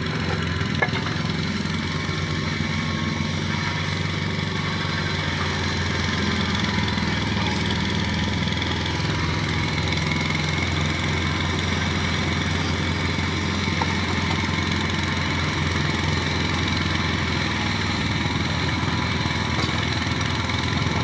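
An engine or motor running steadily: a continuous low hum with an even, rapid pulse.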